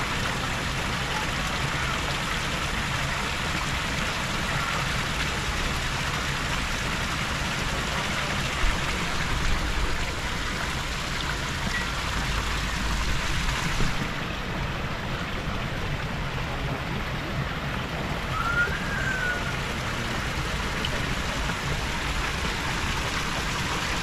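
Many thin water spouts from a brick fountain wall falling into a pond, splashing steadily.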